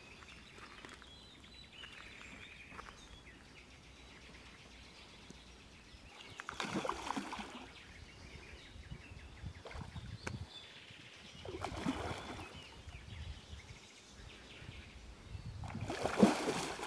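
A large hooked carp thrashing at the water's surface while being played, splashing in three bursts: about six seconds in, again about five seconds later, and loudest near the end.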